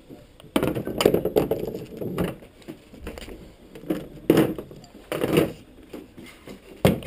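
Hard plastic and metal mounting hardware knocking and clattering as it is handled on a plastic kayak hull: a run of irregular knocks, with a cluster about a second in and more scattered ones later.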